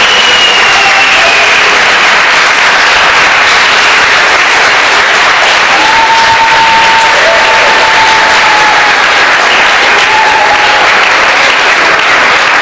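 Audience applauding: loud, steady clapping throughout, with a few voices calling out over it.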